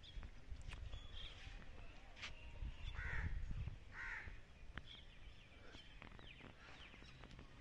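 Crows cawing twice in the background, about three and four seconds in, with a few faint clicks and a low rumble underneath.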